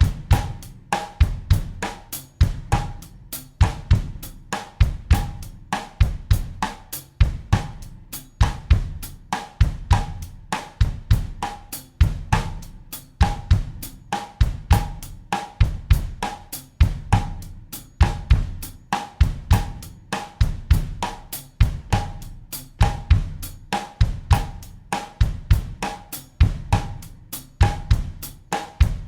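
Acoustic drum kit playing a steady bossa nova groove in 4/4 at 100 BPM: bass drum, snare and hi-hat/cymbal repeating evenly as a practice loop.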